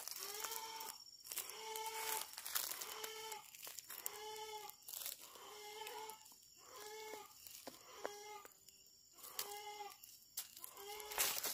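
A young chicken calling over and over, short calls of the same pitch about once a second, while it is being chased. Footsteps crunch on dry leaves underneath.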